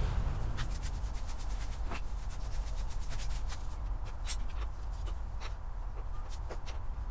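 Irregular light clicks and scraping of a hand tool turning and working out small bolts on a motorcycle's plastic body panels, over a steady low rumble.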